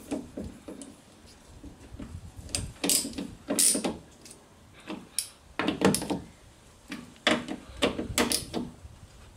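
Irregular knocks and clicks of hand tools and metal parts working inside an Opel Vectra B car door while the central-locking actuator's screws are tightened.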